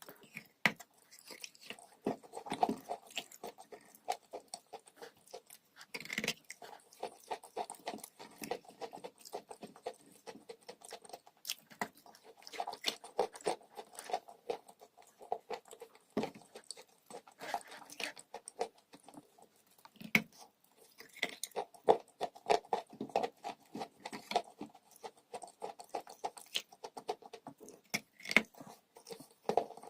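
Someone chewing crunchy dry chalk: a dense, irregular run of small crackling crunches with louder clusters every few seconds.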